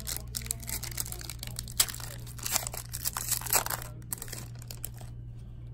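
Foil wrapper of a trading-card pack crinkling and crackling in the hands as it is worked open, with a few sharper crackles; the crinkling stops about a second before the end.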